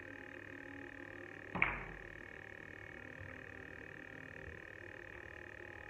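One sharp click of carom billiard balls striking each other about a second and a half in, over a steady high background hum.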